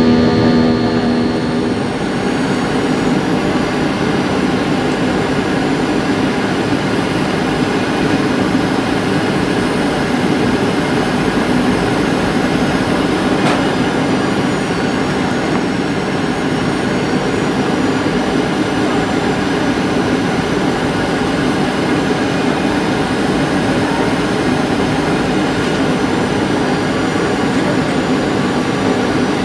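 Steady cabin noise of a Boeing 737-700 in flight: the hum and whine of its CFM56-7B turbofan engines over the rush of air along the fuselage. About two seconds in, a strong low tone drops away and the even engine-and-air noise carries on.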